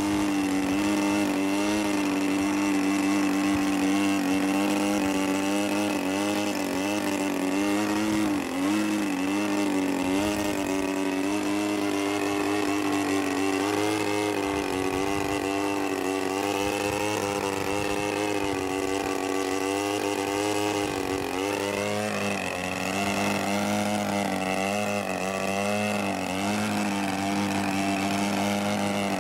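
DA-50 50cc single-cylinder two-stroke petrol engine on an Extra aerobatic RC plane, running steadily in a prop-hang hover. Its pitch wavers up and down as the throttle is worked, with two brief dips, about 8 s and 22 s in.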